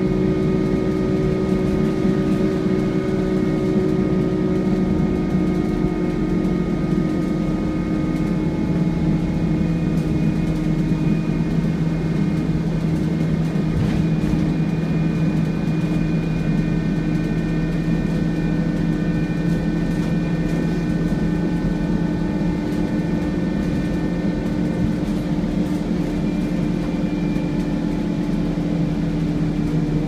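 Scania N230UD double-decker bus 'hoovering': a steady vacuum-cleaner-like whine made of several held tones. It falls slowly in pitch over the first several seconds, then holds level. It is heard from inside the lower deck.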